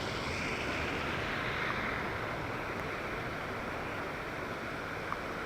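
Steady rain falling, an even hiss with a couple of faint ticks.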